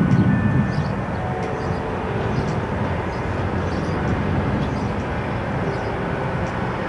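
Wind buffeting the camcorder's microphone over a steady low rumble of street traffic, with a faint engine hum in it.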